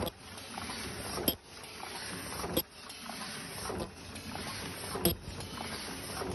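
Paper cup lid forming machine running: a steady mechanical noise with a sharp knock about every 1.3 seconds, one for each cycle of its rotary turret.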